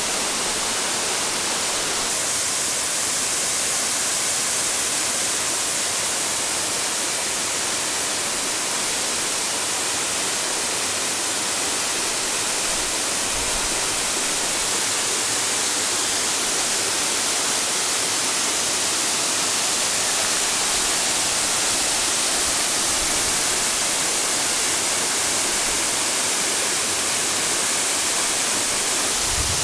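Waterfall about 30 m high pouring onto rocks: a steady, even rush of falling water.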